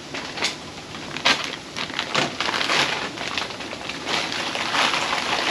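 A plastic bag of shrimp crinkling and rustling in irregular bursts as it is emptied into a shrimp boil cooker, the shrimp splashing into the hot water.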